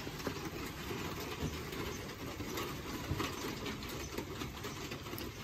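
Light knocks, creaks and handling noise as the hinged plywood lid of a storage box is lifted open, over a steady soft background noise.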